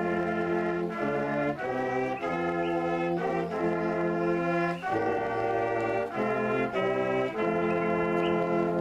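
Brass ensemble, trombones and trumpets, playing a slow hymn in held chords that move to a new chord every second or so.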